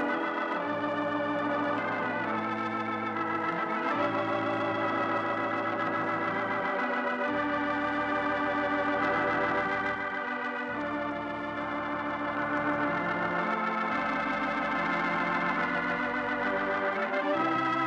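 Organ music: sustained chords with a wavering vibrato over a bass note that shifts every three or four seconds.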